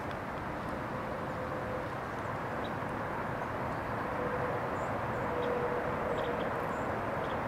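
Steady outdoor background noise with a faint drawn-out hum that comes in about a second in and again in the second half, and a few faint short high chirps.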